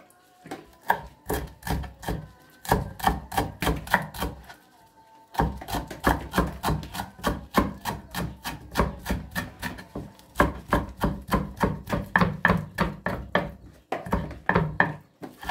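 Kitchen knife chopping fresh parsley on a cutting board: quick strokes at about four or five a second, in runs with brief pauses about five seconds in and near the end.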